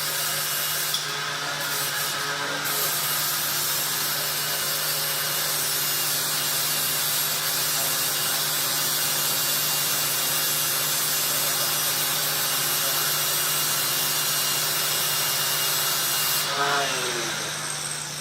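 Grinder grinding metal steadily, throwing sparks, then released near the end, its motor spinning down with a falling pitch.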